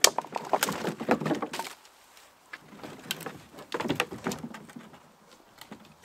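Dead branches and logs knocking, clattering and scraping against each other and the canoe hull as they are lifted out of the boat, in two bouts.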